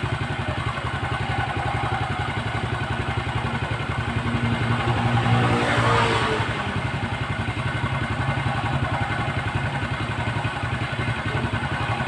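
Motorcycle engine idling steadily, its firing pulses even throughout, swelling briefly in loudness about five to six seconds in.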